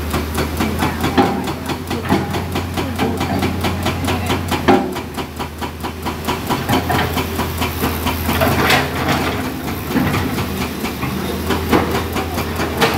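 Hydraulic excavator's heavy diesel engine running steadily with a low hum while it loads rock into a dump truck, with scattered knocks and clatter of the work and a brief hiss a little past the middle.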